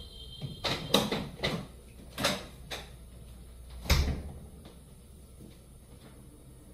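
Kitchen handling noise: several sharp clicks and knocks in the first four seconds, the loudest a heavy thump about four seconds in, then quieter.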